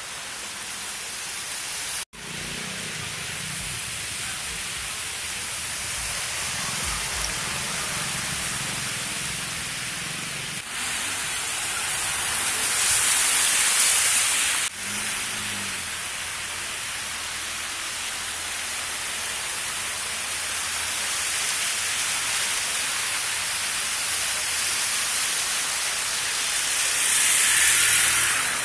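Steady hiss of water on a flooded street: car tyres swishing through shallow floodwater. It swells louder twice, about halfway through and near the end, as vehicles pass, and drops out briefly about two seconds in.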